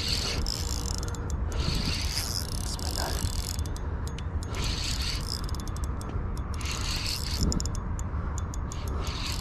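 Spinning reel being cranked to wind in line: bursts of gear whirring with clicks, about every two seconds, over a steady low rumble.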